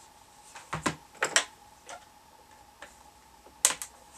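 Plastic CB radio case handled and turned over while being opened: a few short, sharp clicks and taps, the two sharpest near the end, over a faint steady hum.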